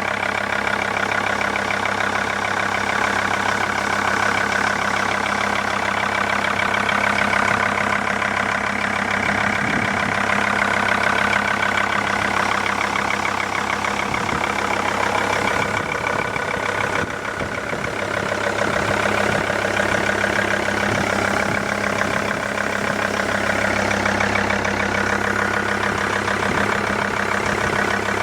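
Mercedes-Benz W211 E-Class engine idling steadily with a fast, even knocking running through it, the knock the car has developed.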